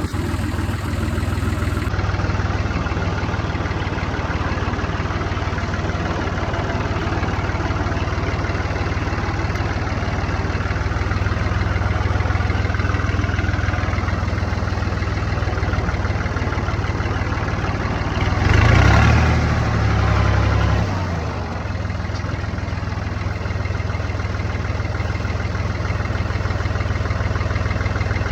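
Diesel farm tractor engine running steadily. About two-thirds of the way through it gets louder for about two seconds, then settles back.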